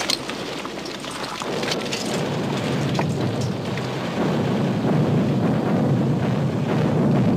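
Film battle sound: a continuous rumble of explosions with crackling gunfire, building louder about halfway through. A few sharp cracks of shots come in the first three seconds.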